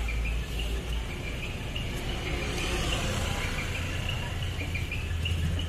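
Steady low rumble of road traffic going past.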